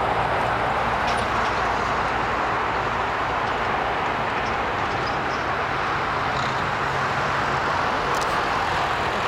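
Airbus A380's four jet engines running steadily as the airliner taxis, a constant loud rushing whine with a low hum beneath.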